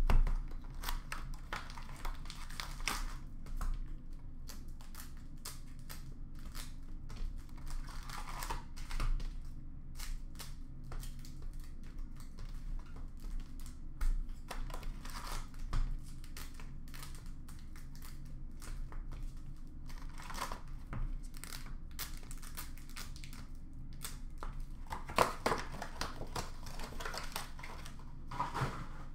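Hockey card packs being torn open and their wrappers crinkled, with cards shuffled and set down by hand: irregular rustling, crinkling and light clicks throughout.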